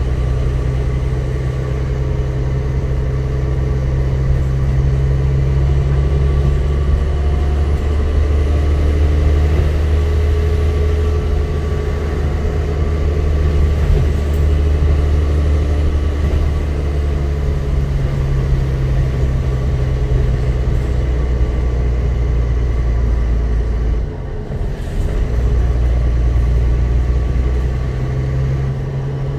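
Dennis Trident double-decker bus under way, heard from inside on the upper deck: a steady low engine and drivetrain drone with road noise. The engine note shifts in pitch a few times and drops away briefly about three-quarters of the way through.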